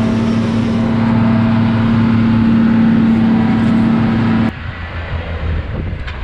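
Tractor engine running at a steady pitch. About three quarters of the way through, the sound drops suddenly to a quieter, lower engine hum.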